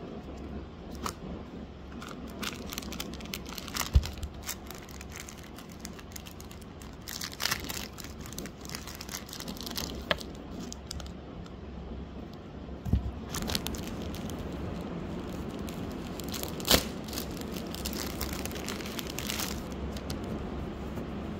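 Rustling, crinkling and small clicks and knocks as a Pandora cardboard jewellery box and its drawstring pouch are handled and opened, in irregular bursts, over a steady low hum.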